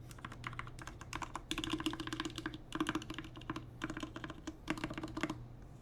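Typing on a GMMK Compact mechanical keyboard with Krytox 205g0-lubed Cherry MX Black Hyperglide linear switches and PBT keycaps: a quick run of keystrokes with a few heavier strokes among them. The typing stops shortly before the end.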